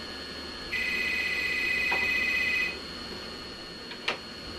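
Desk telephone's electronic ringer sounding one warbling ring of about two seconds, followed near the end by a single sharp click.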